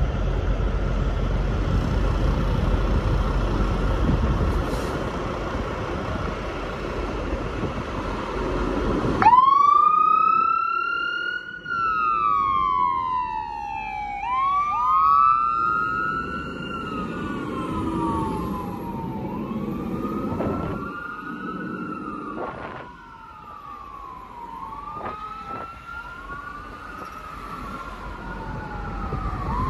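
A fire engine pulling out with a steady low engine rumble, then about nine seconds in its siren starts wailing, rising quickly and falling back in long sweeps that repeat roughly every five seconds.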